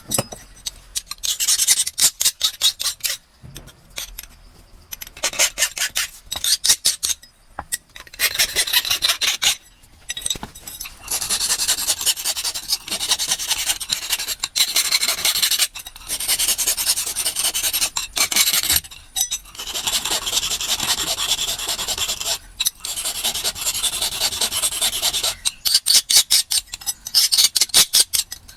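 A hand file rasping on the metal blade of a coconut scraper (chirava). It goes in quick short back-and-forth strokes at first and again near the end, with longer unbroken scraping stretches in between.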